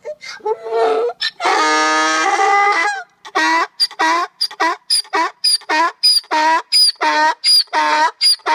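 An animal calling loudly: a few short cries, a long drawn-out call in the middle, then a quick run of repeated short calls, about three a second.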